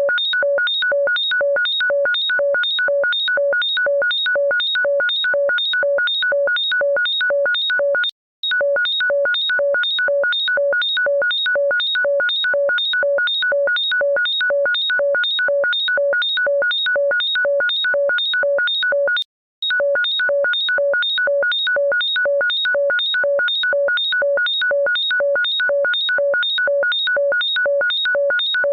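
Electronic beeping: a shrill beep of several tones at once, repeated rapidly and evenly about three times a second, with two short breaks, about eight and nineteen seconds in.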